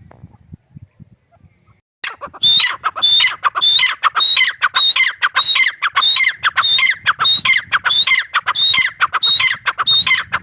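Grey francolin (teetar, the South Asian 'gray partridge') calling: a loud run of harsh, repeated call notes, about two a second, starting about two seconds in and cutting off abruptly near the end.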